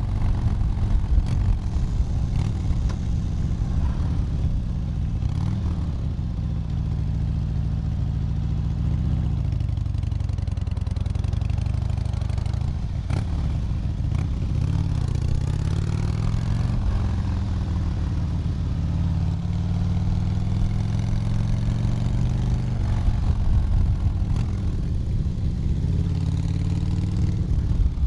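Motorcycle engine heard from the saddle while riding, its pitch rising and falling again and again as the rider opens and closes the throttle.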